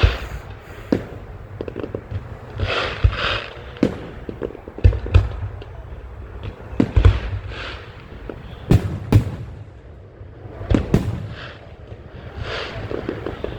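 Aerial fireworks display bursting: a steady run of sharp bangs at irregular intervals, several coming in quick pairs.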